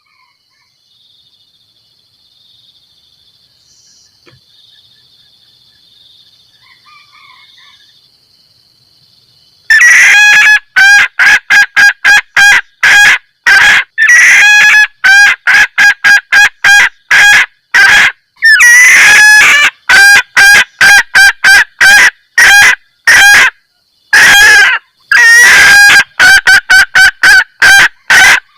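A junglefowl hen cackling the 'kekkek' mating call used to lure cocks. Faint and quiet with only a thin high steady hum at first; about ten seconds in, a loud run of short, sharp 'kek' notes begins, several a second in quick bursts, going on to the end.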